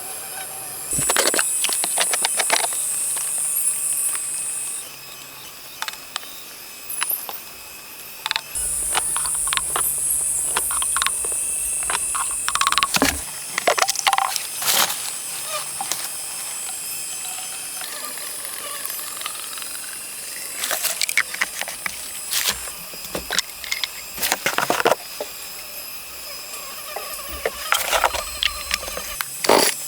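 Scattered knocks, taps and clicks of manual building work, irregular and in clusters, over a steady high-pitched hiss that starts and stops abruptly at several points.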